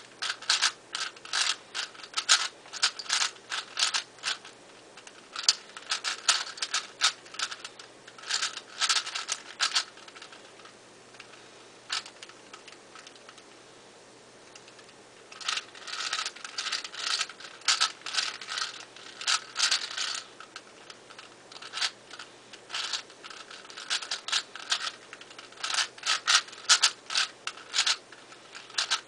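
ShengShou 4x4 speed cube being turned fast: rapid clicking and scraping of its plastic layers in runs of turns, with a pause of a few seconds about midway.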